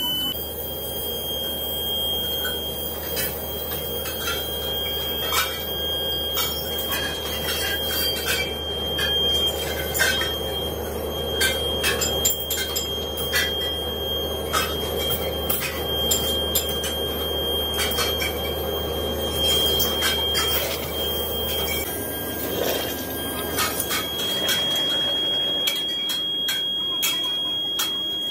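Blacksmith's coal forge with its fire blown hard: a steady rushing noise, overlaid with scattered metal clinks and knocks as steel pieces are handled at the hearth. A low hum stops about 22 seconds in, and a steady high whine is heard at the start and again over the last few seconds.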